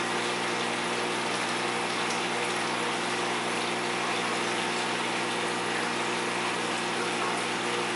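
Aquarium wet/dry filter system running: a steady pump hum under an even hiss of rushing water.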